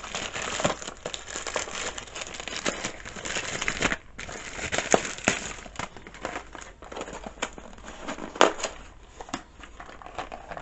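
Plastic packaging crinkling and rustling as a replacement chainsaw carburetor kit is unwrapped by hand, with irregular sharp crackles.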